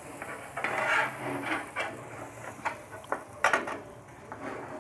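Spatula knocking and scraping against a small frying pan as stacked slices of toasting bread are flipped, a run of irregular clatters and taps, the loudest a close pair about three and a half seconds in.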